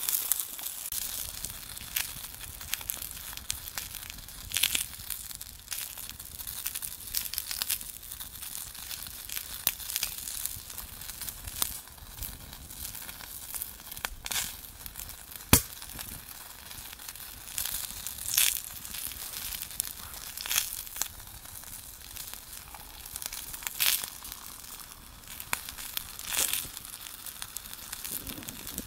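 Twig fire burning in a Firebox stove, crackling with irregular sharp pops over a steady hiss; the loudest pop comes about fifteen seconds in.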